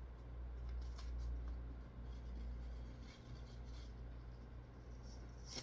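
Faint handling noises, light rubbing and small clicks of a hard plastic CGC comic slab being handled, over a low steady room hum.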